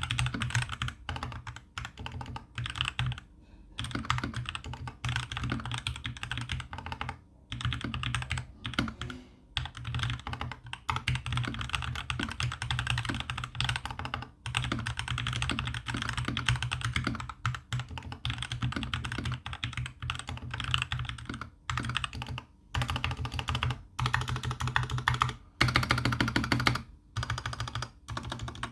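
Fast continuous typing on a GK61 V2 60% mechanical keyboard with lubed Gateron Silver linear switches and pudding keycaps: a rapid patter of key strikes, broken by a few short pauses.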